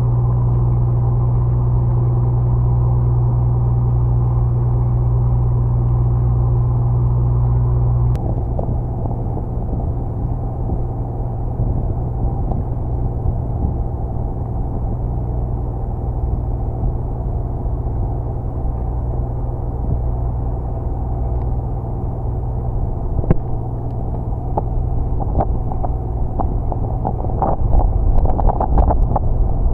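A boat's engine running with a steady low hum that drops and turns rougher about eight seconds in. Scattered clicks and knocks come near the end.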